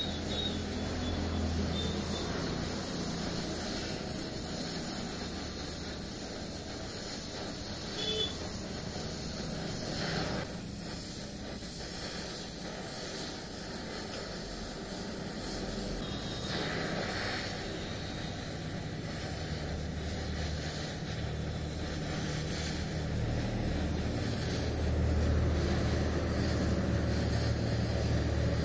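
Steady hiss of a gas-welding torch flame working on a steel diesel tank, with a low rumble underneath that grows louder near the end and a single brief click partway through.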